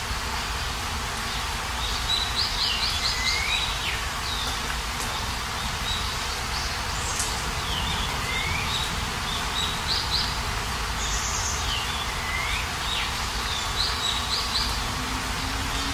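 Steady rain falling, with a songbird calling four times in short phrases of quick chirps ending in a falling note.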